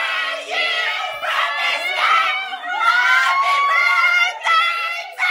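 Several high-pitched voices shrieking and shouting excitedly over one another in a small room, with long rising cries.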